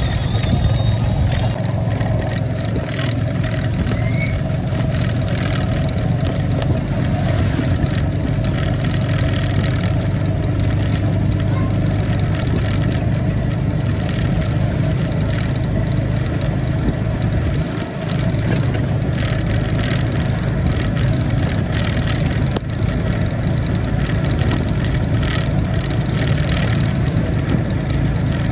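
An engine running steadily at an even pitch, a continuous low hum with faint ticks and rattles over it.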